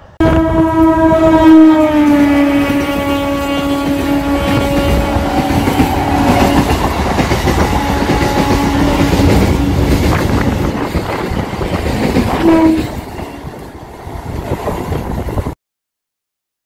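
EMU local train passing at speed with its horn sounding: a long horn blast that falls in pitch as the train goes by, then the rushing noise and wheel clatter of the coaches, with more horn and a short toot near the end. The sound starts suddenly and cuts off abruptly about a second before the end.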